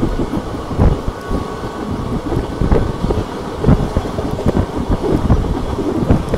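Passenger train coaches running at speed on the track, heard from an open door: a steady rumble of wheels on rails with irregular heavy knocks.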